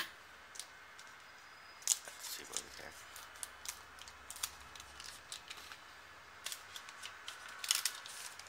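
Foil trading-card booster packs crinkling and clicking as they are handled, in scattered sharp crackles.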